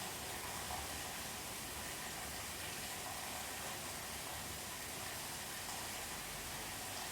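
Steady rain heard from indoors, an even hiss with no clear thunder strike.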